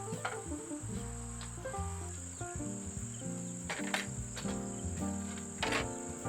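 Background music, a melody of short stepped notes over held bass notes, with the steady high chirring of crickets underneath. A few sharp clicks or knocks come through, the loudest about four seconds in.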